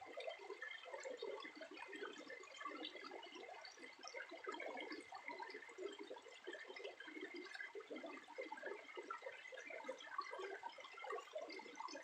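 Water splashing and trickling: a continuous run of small splashes and drips.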